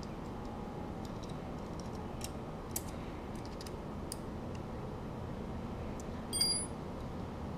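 Light clicks and ticks of small metal parts and a hand tool as the jet-ski handlebar levers are worked and fastened, with one sharper metallic clink that rings briefly about six seconds in, over a steady low background noise.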